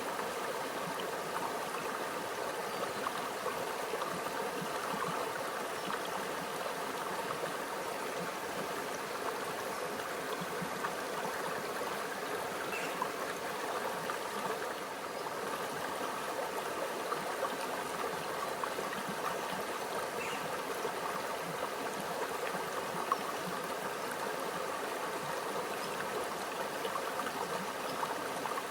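A small, shallow stream running and trickling over rocks, a steady burbling wash of water with a few tiny splashes.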